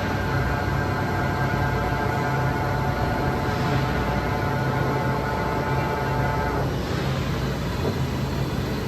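HAAS EC1600 horizontal machining center running under power: a steady low hum and noise, with a whine that cuts off about two-thirds of the way through.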